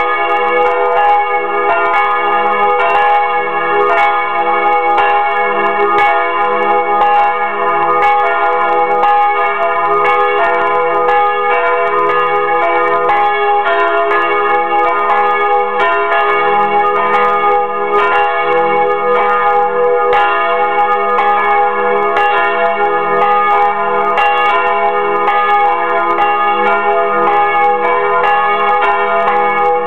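Two swinging church bells, the large one cast by Fremy and the small one by Bachert, ringing together from close by in the belfry. Their clapper strikes fall in an uneven, overlapping pattern over a continuous ring. This is the ringing-in of Sunday.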